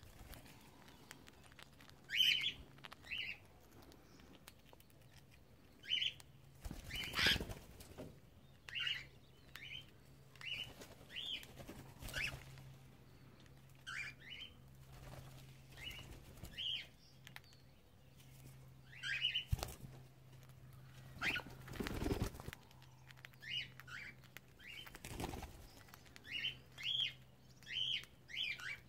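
Cockatiels giving short chirping calls every second or two, with wings flapping several times as birds fly or flutter in the aviary.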